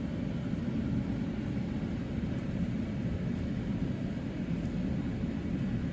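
Steady low rumble of a car driving on an unpaved dirt road, heard from inside the cabin.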